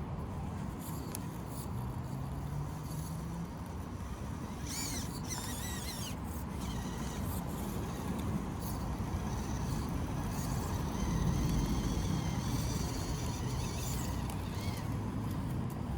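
Small electric motor and geartrain of an Axial SCX24 1/24-scale rock crawler whining as it crawls, its pitch shifting with the throttle, over steady outdoor background noise.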